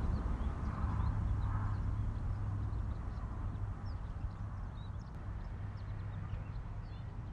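Outdoor ambience: many short, scattered bird chirps over a steady low rumble.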